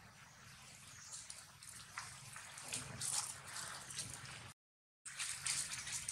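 Irregular crackling rustle of leaves and twigs as long-tailed macaques climb and move through a tree, growing busier from about a second in. It cuts out completely for about half a second near the middle.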